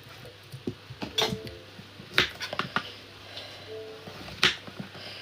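Scattered clinks and knocks of plates and cutlery being handled while food is served, with the sharpest knocks about two seconds in and again near the end.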